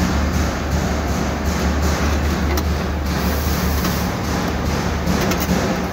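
Steady low electric hum of the air-conditioning unit for a Macy-Pan HP1501 hard hyperbaric chamber running, its water tank stirring, with scattered clicks and light knocks as its plastic lid is handled and closed.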